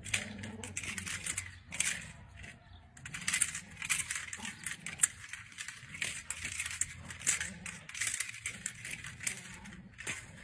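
Irregular rattling and clinking as a dog tugs and shakes a toy against its handler's grip.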